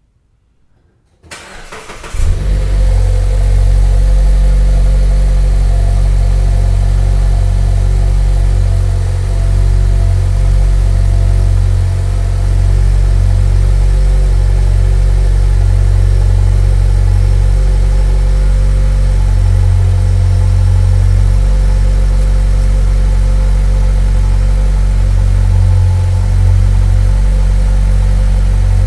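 Mazda CX-9 engine starting about a second in, catching a moment later, then idling steadily with a strong low hum.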